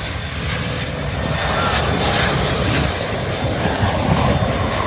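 Gulfstream IV business jet's twin Rolls-Royce Tay turbofans on landing approach: a steady jet engine rush that grows louder as the aircraft comes closer.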